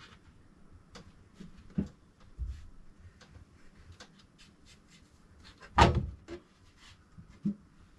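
Light clicks and knocks of things being handled and set down, with one louder thump about six seconds in.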